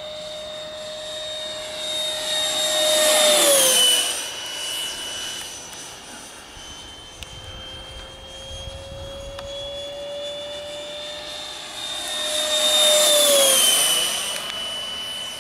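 Electric ducted fan of a 90 mm EDF MiG-17 RC jet whining at high speed in two low fly-bys. Each pass swells to its loudest and drops in pitch as the jet goes by, about four seconds in and again near the end.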